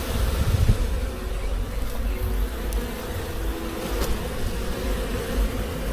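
Swarm of honeybees buzzing around a hive, a steady hum of many bees at once, over a low rumble.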